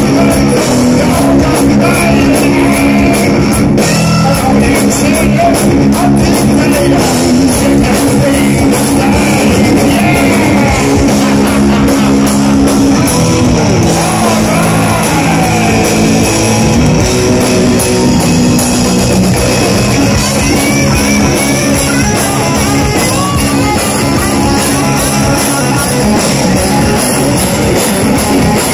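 Live heavy metal band playing loud: distorted electric guitar riffing over a drum kit.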